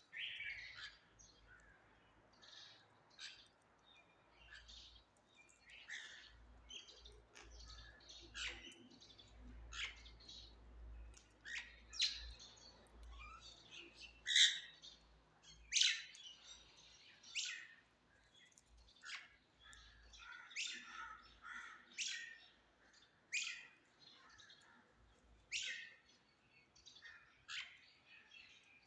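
Birds calling: a long string of short, sharp, high calls, about one or two a second, some much louder than others, over a faint low rumble.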